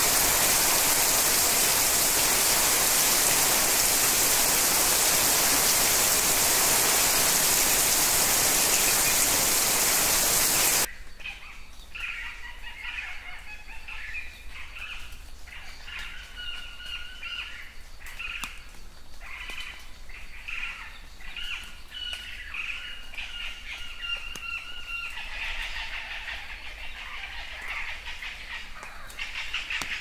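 Heavy rain pouring down, loud and even, cutting off suddenly about eleven seconds in. Then birds calling over quieter rain: repeated short chirps and whistles, busier near the end.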